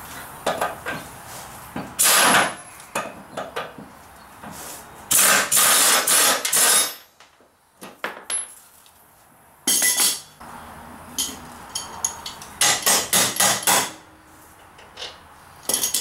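An air impact wrench with a 15/16 socket hammers on a mower's blade spindle bolts in four short, loud bursts, rattling as it breaks the bolts loose. Lighter metal clinks from the wrench and parts come between the bursts.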